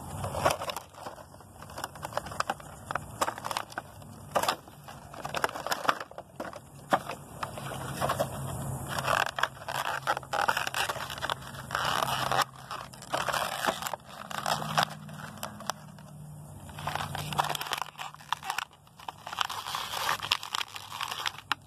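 Cardboard box and clear plastic packaging of a small vinyl toy figure being handled and pulled apart, with repeated crackling, crinkling and scraping of the plastic as the figure's tail is worked free of the plastic insert.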